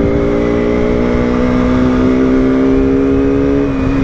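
Sport motorcycle engine pulling at steady revs while riding, its pitch creeping slightly upward and then dropping near the end, with wind rumble underneath.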